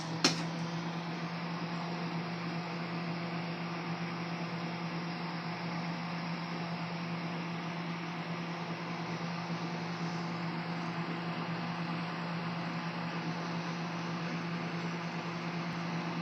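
Microwave oven running with a steady hum and fan noise, after a sharp click just as it starts. The popcorn is not popping yet.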